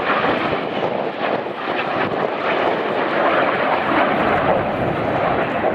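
A formation of BAE Hawk T1 jet trainers flying by, their jet engines making a steady, loud rushing noise.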